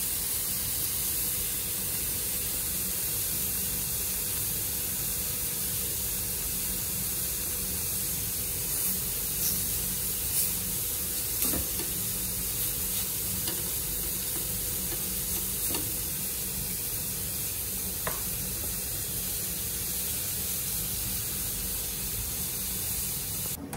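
Chicken breasts sizzling in a ridged grill pan, a steady hiss of frying, with a few light clicks of metal tongs against the pan partway through as the pieces are turned.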